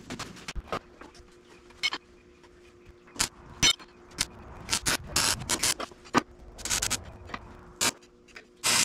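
Arc welder laying a series of short tack welds on a steel air-bag bracket, each a brief crackling burst, with the longest ones in the second half, between clicks and knocks of metal being handled. A faint steady hum runs underneath.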